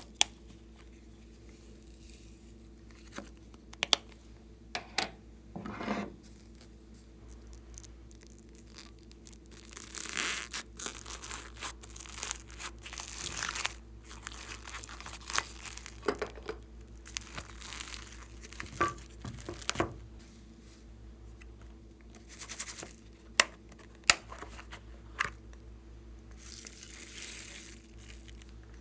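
Plastic crinkling and tearing as packaging or a piping bag is handled, in several stretches of rustling, with a few sharp clicks and taps in between.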